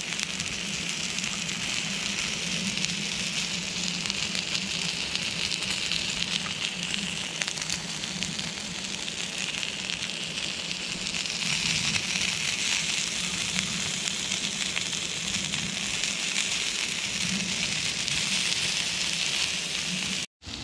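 Beef burgers and onion rings sizzling steadily on a ridged cast-iron griddle pan over a gas stove, a good sizzle, with a low steady hum beneath. The sound breaks off briefly just before the end.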